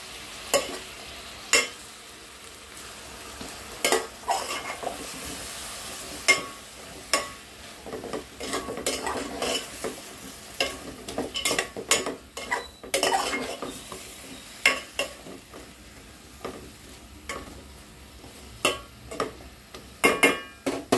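Metal spoon stirring chunks of eggplant, plantain and potato in a metal pot, with irregular scrapes and knocks against the pot, over a faint sizzle of the vegetables sautéing in oil.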